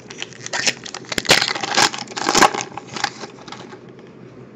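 Trading card pack wrapper being torn open and crinkled by hand: a busy run of crinkling that is loudest in the middle and dies down after about three seconds.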